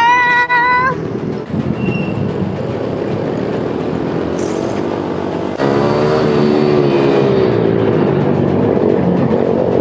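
Small single-cylinder pit bike engines running hard at high revs, the pitch rising and falling with the throttle through the corners. A brief high-pitched tone sounds in the first second, and the engine sound jumps abruptly louder a little past halfway.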